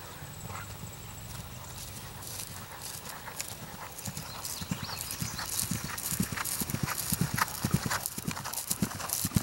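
Hoofbeats of a ridden horse moving fast across turf: a rhythm of dull thuds with sharp clicks. The hoofbeats grow louder from about four seconds in as the horse comes near.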